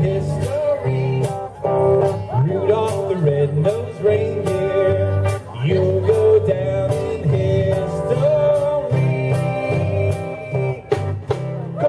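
Live band music: singing over a bass line and a steady drum beat.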